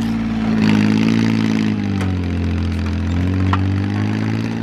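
Compact tractor's engine running as it pushes dirt with its blade. Its pitch sags for a moment about two seconds in, as under load, then climbs back.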